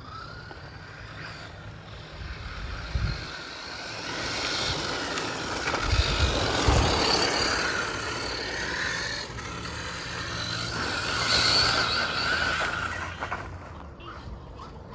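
FTX Zorro brushless RC car driving at speed, its electric motor whining over the rush of tyres on the ground; it gets louder twice, around six and eleven seconds in, with a few low thumps.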